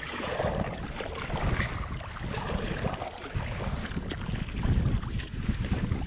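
Kayak paddle strokes dipping and splashing in calm river water, with wind rumbling on the microphone.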